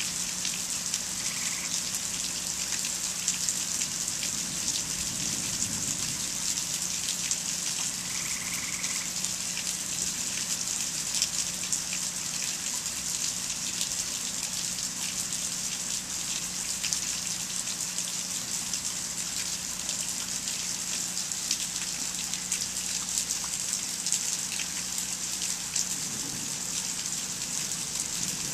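Steady rain falling during a thunderstorm, a dense even hiss made of countless fine drop ticks. A faint steady low hum runs underneath.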